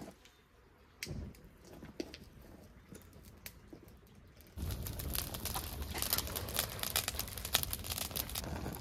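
A heap of dry branches and twigs catching fire: a few faint crackles at first, then about halfway the burning gets much louder, with dense crackling and popping over a steady rush.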